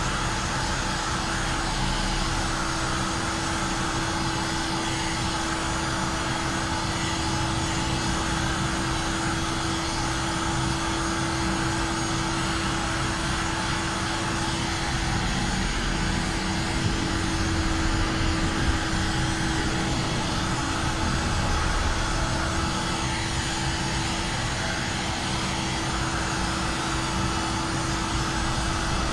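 Handheld heat gun blowing steadily with a constant hum, heat-shrinking window tint film onto the car's glass.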